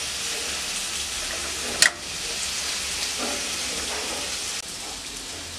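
A hand squeezing and kneading grated coconut in water in a steel bowl to press out coconut milk: a steady wet squelching and swishing. A single sharp click about two seconds in is the loudest sound. The hiss thins out near the end.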